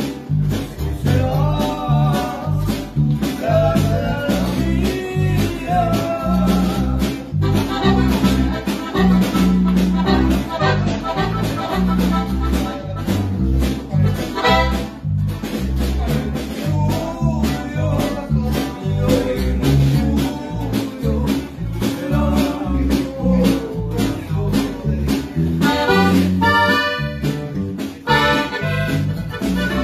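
Norteño band playing: a button accordion carries the melody over a strummed bajo sexto and a five-string electric bass, with a snare drum keeping a steady beat.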